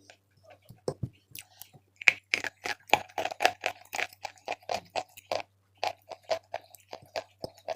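Chalk being bitten and chewed close to the microphone: a bite about a second in, then a steady run of crisp crunches, several a second.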